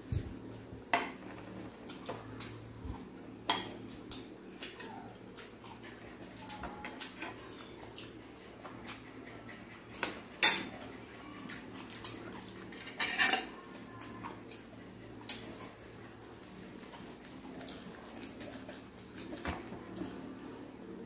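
Spoons and forks clinking against ceramic bowls and plates during a meal: scattered sharp clinks a few seconds apart, the loudest about three and a half, ten and thirteen seconds in.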